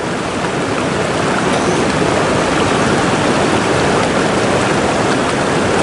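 River water rushing in a steady, even stream.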